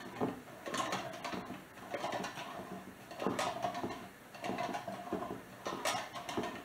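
1915 glass-jar dasher butter churn worked by hand: the dasher rod is plunged up and down through the lid in a steady rhythm of strokes, each giving a clack of metal on the lid with the cream sloshing in the jar. The cream is still thin and watery, not yet turned to butter.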